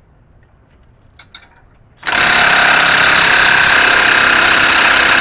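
A few faint clicks, then, about two seconds in, a cordless impact wrench starts hammering steadily on a tight nut that won't budge. The mechanic puts the weak hit down to a low battery.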